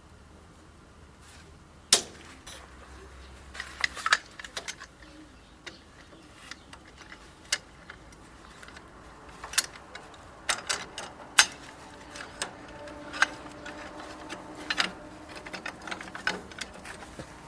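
Scattered metallic clicks and knocks at irregular intervals, the sound of hand tools and metal parts being handled while a manure spreader's pillow block bearing is taken apart.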